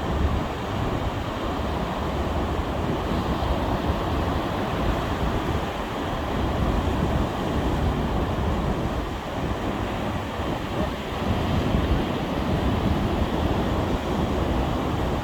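Sea waves surging and washing in a steady rush, with wind buffeting the microphone.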